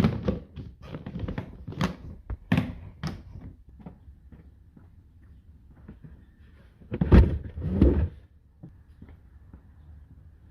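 A series of knocks and thuds, then two heavier thumps about seven and eight seconds in.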